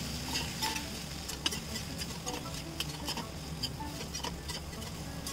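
Steel spatula stirring potato and papaya pieces in a stainless-steel kadhai, with irregular clicks and scrapes of metal on the pan. Light sizzling of the vegetables frying in oil runs underneath.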